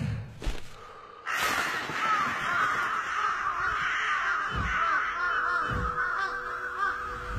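A flock of crows cawing, many calls overlapping, breaking in suddenly a second or so in after a couple of low thumps. Two deep thuds sound under the cawing partway through.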